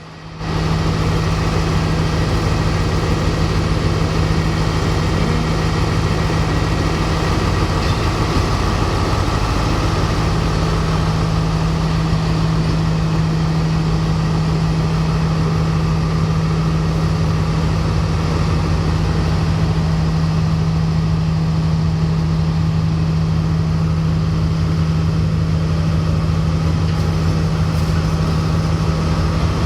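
Sri Lanka Railways Class S12 diesel multiple unit's engine running steadily, with a constant low hum over an even rumble.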